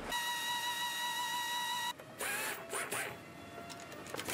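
A steady high mechanical whine with a hiss, from a small machine, cuts off suddenly about two seconds in; short squeaks and scrapes follow.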